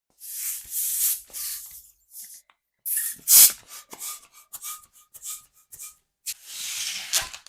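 Rubber of a latex balloon being handled, stretched and twisted for tying: hissy rubbing, with a run of short squeaks in the middle. One loud sharp sound a little after three seconds is the loudest moment.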